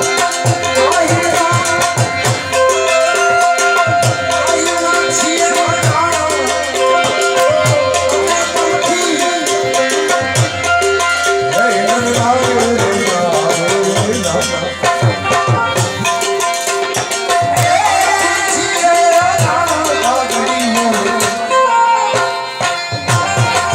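Instrumental passage of Gujarati devotional folk music: a wavering melody line played over a steady, evenly repeating hand-drum beat.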